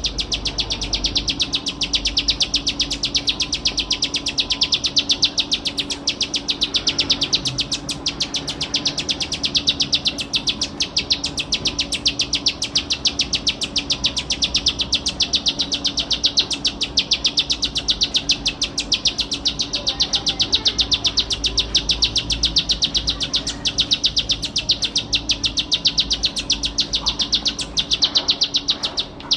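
Plain prinia (ciblek sawah) singing a fast, unbroken run of short, high, repeated notes at several a second, with a brief pause near the end.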